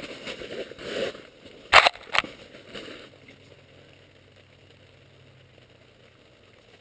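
Scuffing and rustling of clothing and boots on snow-covered ice as someone kneels down close by, with two sharp knocks about two seconds in. After about three seconds it falls quiet except for a faint, steady low hum.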